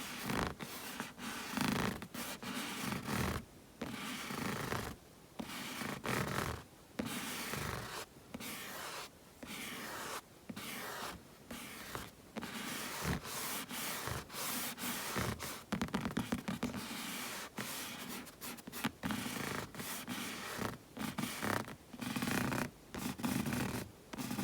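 Bare palms rubbing and rustling together close to the microphone, in short irregular strokes with brief pauses between them, and a run of quick finger taps about two-thirds of the way through.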